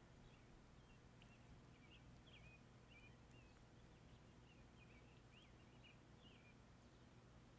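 Faint bird chirps: short twittering calls, about two a second, over a low steady hum.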